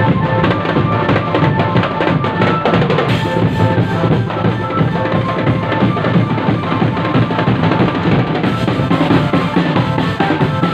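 A marching drum band playing loudly and without a break: dense snare and bass-drum beats, with short held notes of a melody over them.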